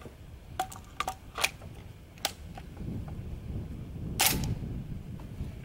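12-gauge shotgun at a shooting bench: a few light, sharp clicks as it is handled and readied, then a single sharp, loud shot about four seconds in as it fires a slug.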